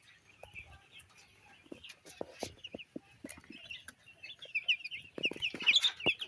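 A crowd of broiler chicks peeping: many short, high, falling chirps, few at first and then thick and louder for the last second or two, with scattered small knocks.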